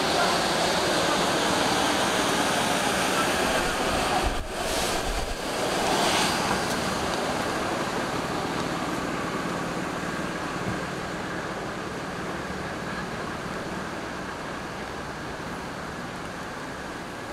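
Steady street traffic noise from cars and buses moving past on a city road, easing slowly toward the end.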